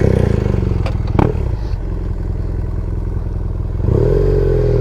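Motorcycle engine running, coming in suddenly and idling steadily, with a single knock about a second in; near the end the throttle opens and the engine note rises and bends.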